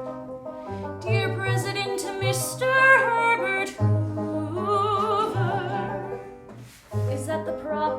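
Music from a musical-theatre song: the introduction before the lyrics, with low bass notes under changing chords and a melody line with strong vibrato in the middle, dipping briefly just before the end.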